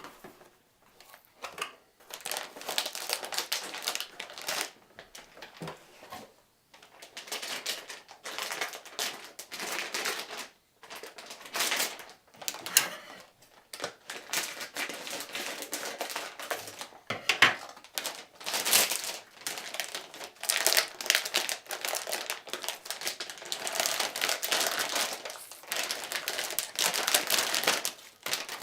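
Packaging of an Asus RTX 2060 graphics card being handled during unboxing: rustling and crinkling with small clicks, in stop-start bursts with short pauses.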